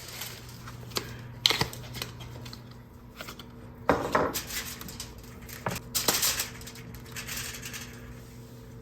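Reynolds non-stick aluminum foil being pulled from its box and torn off: a series of sharp clicks and crinkling rustles, the loudest about four seconds in and another run around six seconds. A faint steady hum runs underneath.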